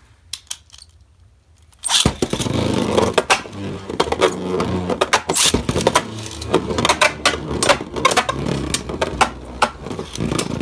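Two Beyblade Burst tops, one of them Dynamite Belial, launched into a plastic stadium about two seconds in, then spinning with a steady whirring scrape on the stadium floor and clashing against each other and the stadium walls in many sharp clicks.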